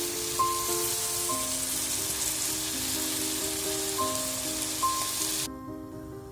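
Food sizzling and frying in hot oil in a pan, a dense steady hiss that cuts off suddenly about five and a half seconds in.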